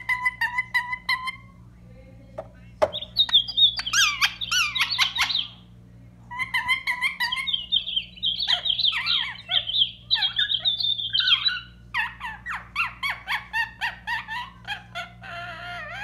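Parrot chirping and squawking in quick runs of calls with short pauses between them, plus one sharp click about three seconds in.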